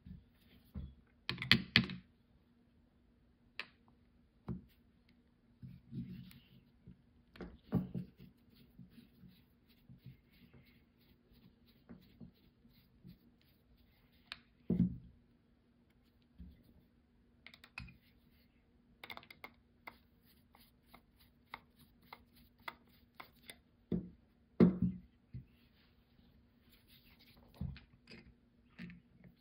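Metal carburetor body and small hand tools being handled on a towel during disassembly: scattered clicks, taps and scrapes, runs of quick small ticks, and a few louder knocks. A faint steady hum lies under it.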